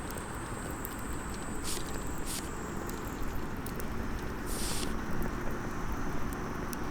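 Small wood fire crackling in a compact hexagonal fire stand, with scattered faint pops and a brief hiss about four and a half seconds in, over a steady low rumble of outdoor background noise.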